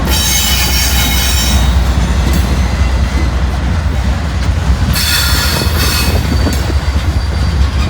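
Loaded freight train cars rolling past with a steady low rumble, their wheels squealing high-pitched in spells as they take the crossover: loud for about the first two seconds, again around five seconds in, and briefly near the end.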